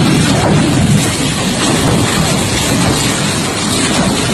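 Tornado winds blowing hard, a loud continuous rumbling rush with the wind battering the microphone.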